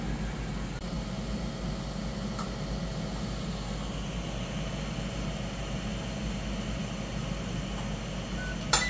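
Ninja Foodi indoor grill and air fryer running on its medium grill setting, its fan giving a steady hum as the timer counts down the final seconds. Near the end a sharp click sounds as the cook cycle ends and the unit shuts off.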